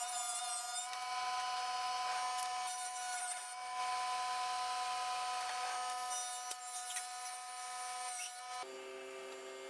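CNC router spindle running with a steady whine while its bit cuts a small solid-wood stick turned in a lathe attachment, with scratchy cutting noise coming and going a few times. Near the end the machine stops and music comes in.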